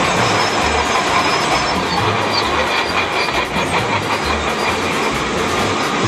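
Vintage grain combine harvester running while harvesting, its feeder house conveyor and threshing machinery making a loud, steady mechanical clatter.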